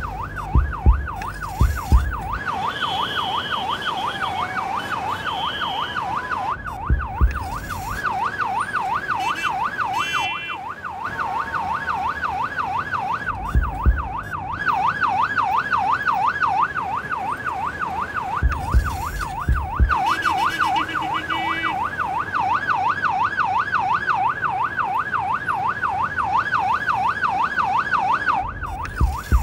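Ambulance siren sounding without a break: a fast rising-and-falling wail, about two to three sweeps a second. A few short, higher beeps sound over it now and then.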